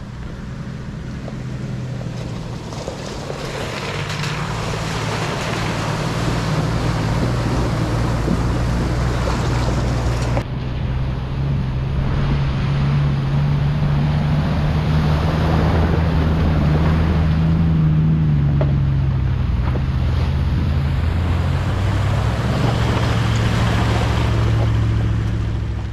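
A four-wheel drive's engine running steadily under load while water rushes and splashes around the vehicle, as in a river crossing. The engine note rises a little about halfway through.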